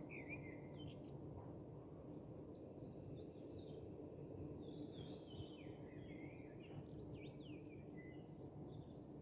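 Faint birdsong: a string of short chirps and whistled calls, several sweeping down in pitch, over a low steady background rumble.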